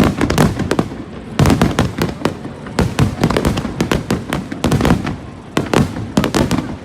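Fireworks display: loud bangs and crackles going off in quick clusters of several at a time.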